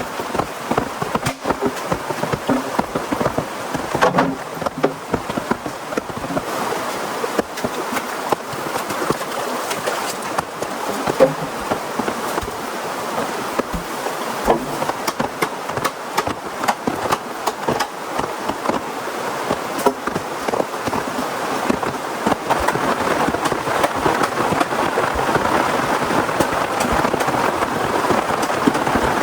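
Heavy rain falling steadily, a dense patter of many drop hits, growing a little heavier about three-quarters of the way through.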